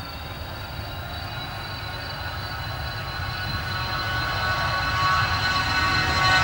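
Cessna 680 Citation Sovereign's twin Pratt & Whitney PW306C turbofans at takeoff power during the takeoff roll: a steady high engine whine over a low rumble, growing steadily louder as the jet comes closer.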